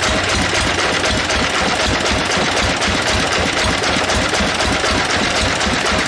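Sawmill bandsaw machine running steadily: a loud, even machine noise with a fast low pulsing underneath.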